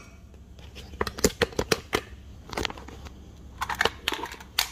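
Light clicks and knocks of glassware and other objects being handled and set down on a stone kitchen counter, about ten sharp taps in irregular clusters.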